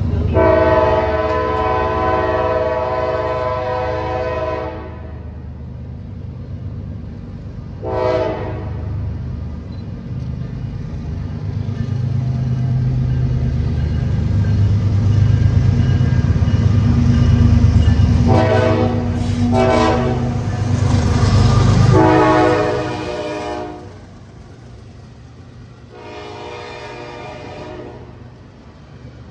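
BNSF freight train's diesel locomotive approaching and passing, sounding its multi-chime air horn in repeated blasts. There is a long blast near the start, short ones about eight seconds in and again around eighteen to twenty seconds, a long one a little later and another near the end. Under the horn the engine and wheel rumble builds to its loudest as the locomotive goes by, then falls to the lower, steady rolling of the freight cars.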